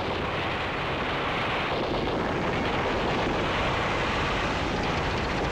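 Tank engine running: a steady, dense rumble with no separate shots or bangs.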